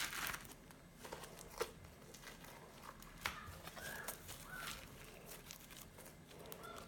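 Faint sticky crackles and clicks of butter slime being handled and pulled apart, with a few short squelchy pops.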